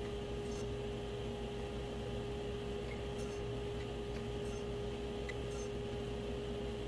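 Steady drone of a running workshop machine, a constant mid-pitched whine over a low hum, with a few faint light clicks as cut wood pieces are handled on the saw table.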